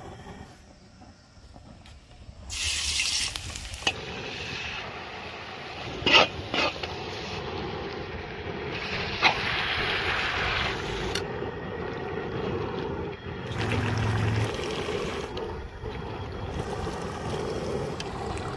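Water running from a kitchen tap into a sink, starting about two and a half seconds in, with a few sharp knocks of kitchenware.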